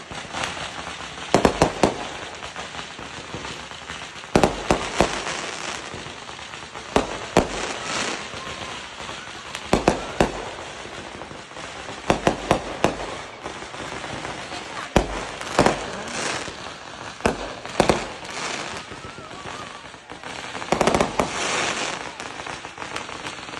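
Consumer fireworks going off: aerial shells launching and bursting, giving sharp bangs in clusters every second or two, with a steady rushing noise between them.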